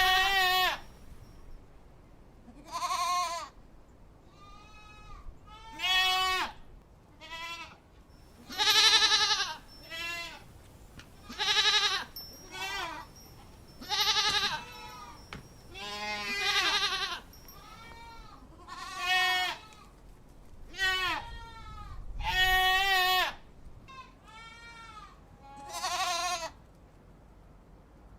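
Goats bleating over and over: about fifteen separate, quavering bleats, each under a second long and a second or two apart, at varying pitches.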